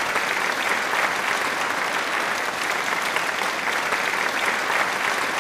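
A crowd applauding: dense, steady clapping with no voice over it.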